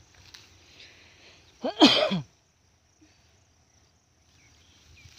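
A person's single short, loud vocal burst about two seconds in, falling in pitch, in the manner of a sneeze; faint field sound otherwise.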